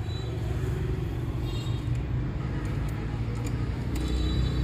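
Steady low rumble of motor-vehicle engines, as from nearby road traffic, with a few faint light clicks.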